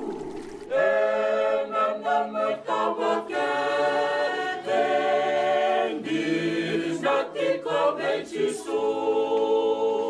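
Church choir singing a hymn a cappella in several parts, with held chords in phrases; it comes in about a second in.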